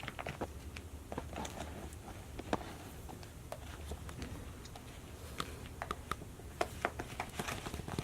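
Scattered light clicks and taps, irregular and unhurried, from plastic Play-Doh toy pieces being handled.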